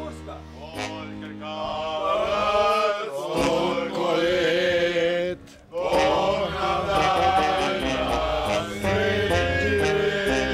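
Men singing together as a group over steady sustained accompanying chords, with a short break in the singing about halfway through.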